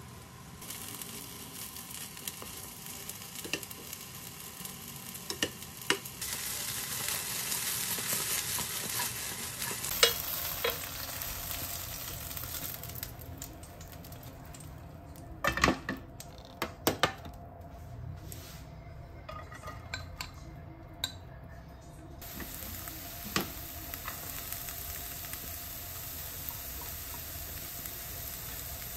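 Eggplant chunks sizzling in oil in a frying pan, turned with metal tongs. Around the middle the sizzle drops away and a few sharp clicks and clinks sound as the browned eggplant is lifted into a dish. Then chopped green onion and garlic sizzle in oil.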